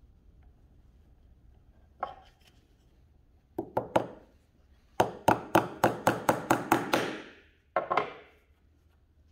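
A small steel hammer taps a thin brass pin into the pivot of a wooden slingshot trigger. There is one tap, then three, then a quick run of about ten taps at roughly five a second, and two more near the end.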